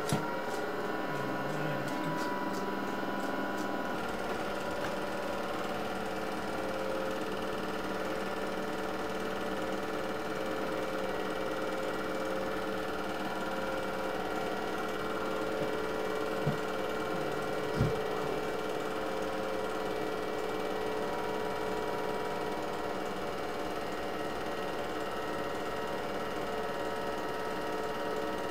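An 8mm film projector running: a steady mechanical whir with fixed hum tones throughout, and a few faint clicks about two-thirds of the way in.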